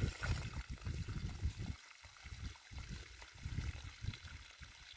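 Water pouring from a plastic pipe outlet and splashing into a pond: a steady rush with uneven low rumbling underneath.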